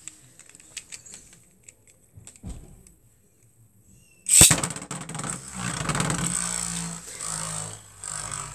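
A few light clicks, then a Beyblade (Xcalius X4) is launched into a plastic Beyblade Rush Stadium about four seconds in with one sharp crack. It spins on, with a continuous whirring scrape and a steady high whine against the stadium floor.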